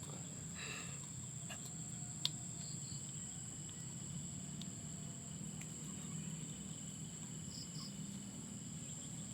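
Steady high-pitched insect chirring over a low background hum, with one small click about two seconds in.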